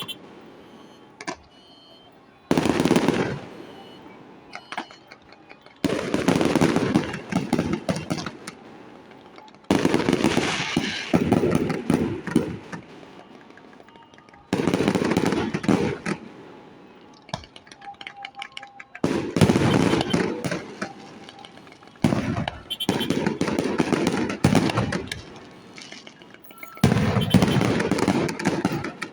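Fireworks going off in about seven volleys, a few seconds apart. Each volley starts with sudden loud bangs and trails off into dense crackling.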